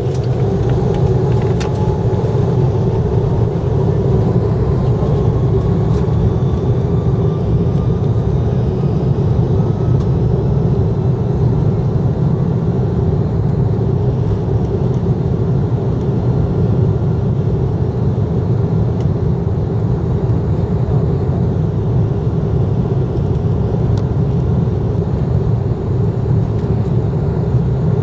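Airbus A330-200 jet engines spooling up to takeoff power: a loud, steady roar with a whine that rises in pitch over the first dozen seconds or so, then holds.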